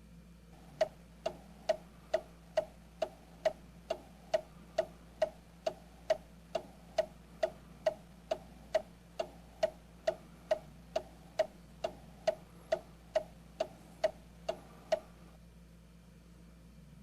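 Goodman natural gas furnace clicking steadily, about two sharp ticks a second, for some fourteen seconds, then stopping, as it tries to start with power restored.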